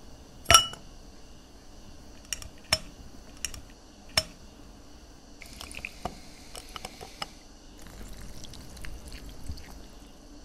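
Ice balls dropped into a tall drinking glass: one sharp clink with a short glassy ring, then several lighter clinks. From about halfway, sparkling water is poured over the ice and fizzes and crackles, and near the end a second liquid, butterfly pea flower tea, is poured in.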